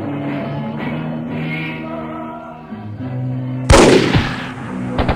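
Sombre choral music with long held notes, cut about three and a half seconds in by a single loud gunshot that rings out and fades. A rapid burst of machine-gun fire starts at the very end.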